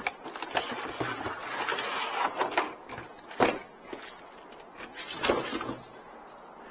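Packaging being handled during an unboxing: rustling of cardboard and wrapping, with a couple of sharp knocks, one about three and a half seconds in and another just past five seconds.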